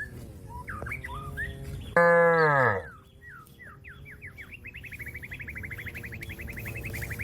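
A cow gives one short, loud moo about two seconds in, its pitch dropping at the end. Small birds chirp around it, and from about halfway on one keeps up a rapid, steady trill.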